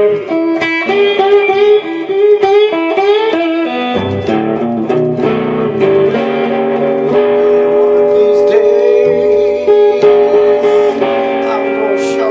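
Blues slide playing on a Telecaster-style electric guitar, a bottleneck slide on the fretting hand: plucked notes that glide up and down in pitch for the first few seconds, then longer held notes ringing on.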